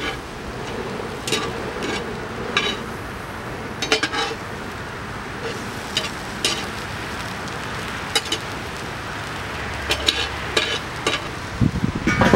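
Oiled parboiled potato pieces sizzling on a hot grill, with a dozen or so short sharp clacks scattered through it as pieces are set down or turned.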